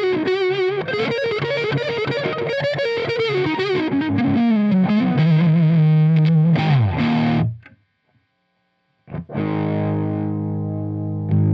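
Gibson Les Paul electric guitar played through a Marshall 100-watt tube amp stack with heavy overdrive: a lead phrase with bent, wavering notes runs down in pitch and cuts off abruptly. After a brief silence a low chord is struck and left ringing.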